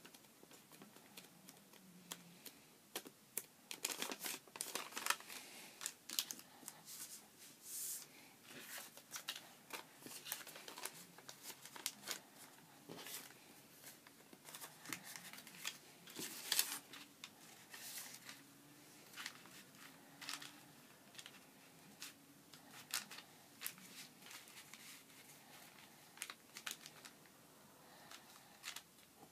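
Folded paper pieces rustling and crinkling as they are handled, fitted together and pressed flat on a table, with many irregular small clicks and taps.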